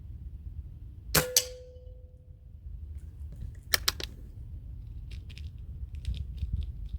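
A .22 air rifle fires a pellet about a second in, with a second sharp crack a quarter of a second later and a short ringing tone after it. A pair of sharp metallic clicks follows a few seconds later, then a run of lighter clicks, as the rifle's action is worked and reloaded.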